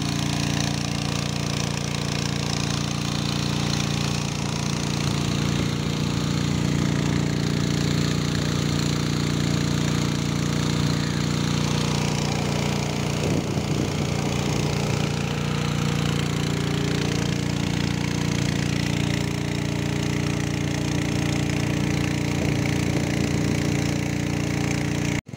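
Engine-driven water pump running steadily, with an even, unchanging hum while it pumps out a pond.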